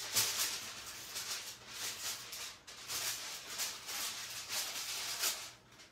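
Aluminium foil crinkling and rustling in a run of irregular bursts as a sheet is pressed into place over a pan in the oven.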